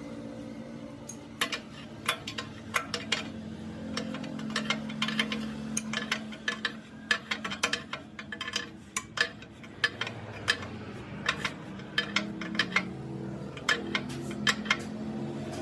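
Irregular sharp metallic clicks and taps over a steady low hum.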